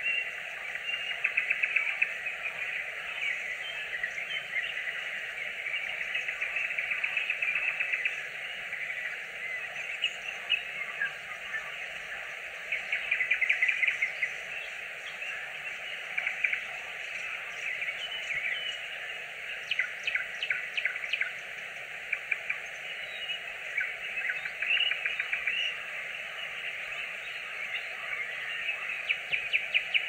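Nightingale singing in separate phrases with short pauses between them: fast trills and runs of dry, rapid clicks, the loudest phrase about halfway through. Under the song runs a steady background hiss.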